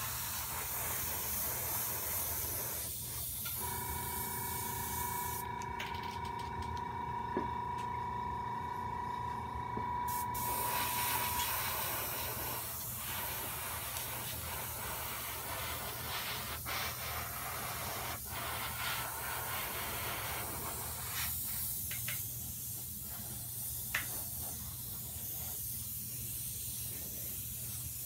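Iwata airbrush spraying paint, a steady hiss of air that stops for about five seconds in the first half and then resumes. A steady tone of several pitches is heard from about 4 to 11 seconds in, over a constant low hum.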